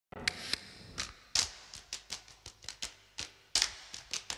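A dry, uneven run of sharp percussive clicks and taps, about three or four a second, with a few louder strikes standing out. This is the opening of a recorded song, before any melody or voice comes in.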